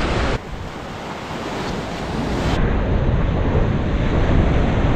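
Ocean surf breaking and washing over a rock ledge, with wind buffeting the microphone. The sound drops suddenly just after the start, then builds steadily as a wave crashes against the rocks.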